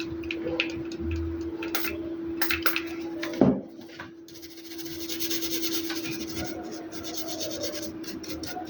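Rubbing and scraping, with a sharp click about three and a half seconds in, over a steady hum.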